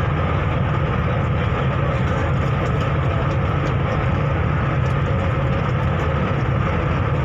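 A ferry's engine running steadily under way: a constant low drone with a faint steady whine above it.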